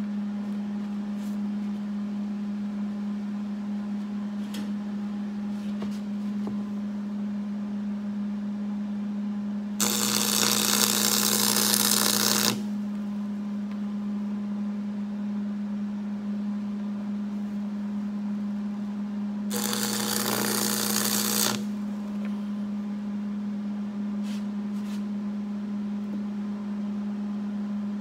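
Arc welding with a 6013 stick electrode on steel: the arc is struck twice, sizzling for about three seconds the first time and about two seconds the second. A steady hum runs underneath throughout.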